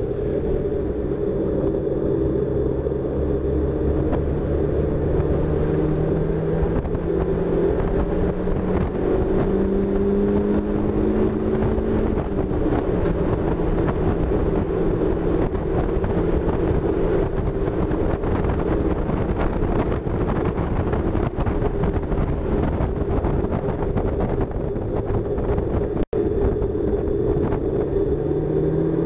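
1999 Mazda Miata's 1.8-litre four-cylinder engine accelerating on track, its pitch climbing steadily for about the first twelve seconds, then running hard with heavy wind noise in the open cockpit, and climbing again near the end.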